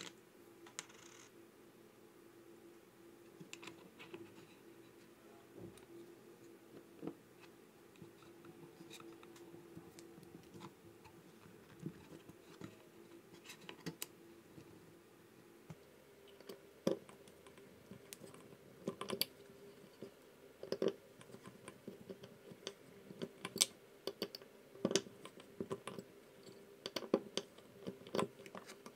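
Small metal parts (a shaft, pulley and timing belt) being handled and fitted into a 3D-printed plastic housing: scattered light clicks, taps and scrapes, coming more often in the second half.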